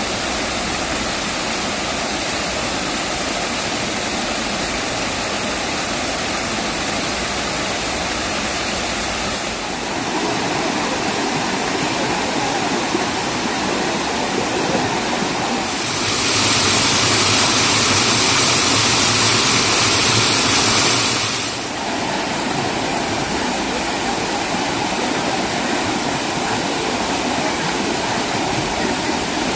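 Mountain valley stream rushing over rocks, a steady water noise. About 10 s in the sound changes, and from about 16 s it grows louder and brighter for some five seconds before dropping back.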